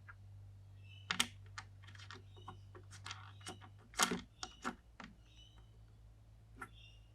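Irregular small clicks and taps of PC components being handled and fitted during assembly, the loudest about a second in and around four seconds in, over a low steady hum.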